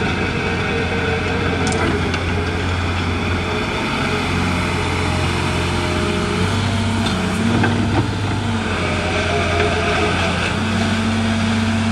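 Diesel engine of a 1990 Case Poclain 888 CK crawler excavator running steadily, with extra tones coming in about six seconds in and again near the end as the machine is worked.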